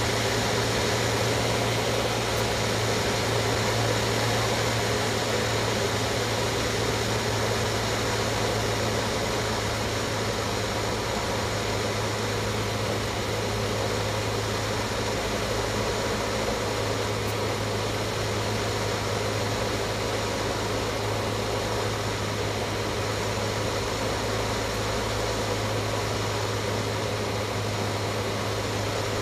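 Cessna 152's Lycoming O-235 four-cylinder engine and propeller droning steadily in flight, heard from inside the cockpit.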